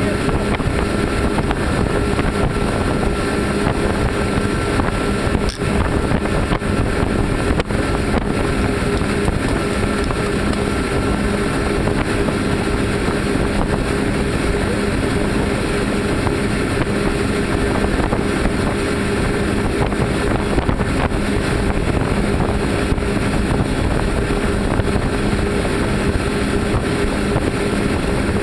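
Three outboard motors on a fishing boat running steadily at cruising speed, giving an even drone. The rush of water and wind around the moving boat runs under it.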